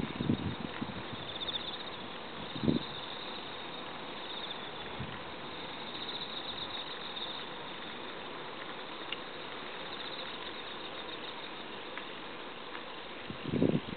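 Insects, crickets by the sound of it, trilling in pulsing high chirps over a steady hiss of evening outdoor ambience. A few short low thumps on the microphone come at the very start, about three seconds in, and near the end.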